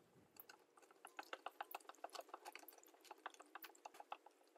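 Fine wet sandpaper rubbing over a plastic headlight lens, a quick, uneven run of short, faint scratching strokes.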